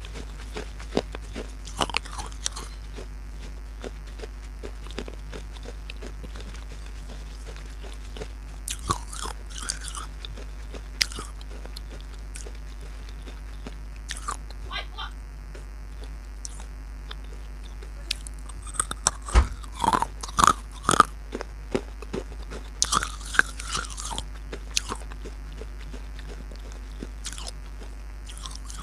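Pieces of baked clay pot being bitten and chewed close to the microphone: scattered sharp crunches, clustered in bursts with gaps of chewing between.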